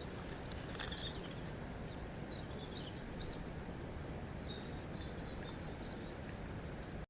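Steady rush of flowing water with small birds chirping over it: several short, high chirps and trills scattered through.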